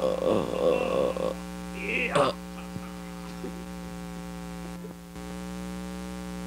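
Steady electrical hum on an old home-video soundtrack, with a short burst of noise in the first second and a brief sweeping sound about two seconds in.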